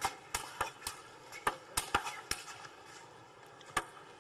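Table tennis rally: the ball clicks sharply off the rackets and the table in a quick run of hits and bounces every third to half second. A gap of over a second follows, then another hit near the end.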